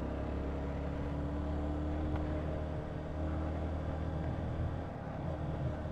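Honda CBR125's single-cylinder four-stroke engine running steadily while riding, its drone shifting a little in pitch.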